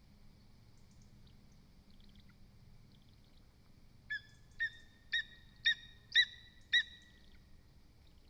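Lesser spotted eagle calling: a series of six short, sharp call notes about half a second apart, starting about halfway through and growing louder. Faint small birdsong chirps sound in the background.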